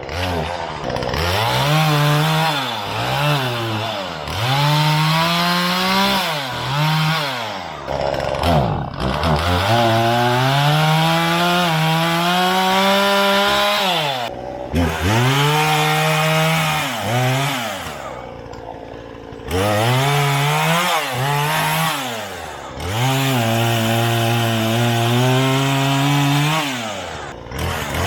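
Two-stroke chainsaw revved hard again and again: the engine climbs to high speed, holds for a few seconds, then drops back, about eight times.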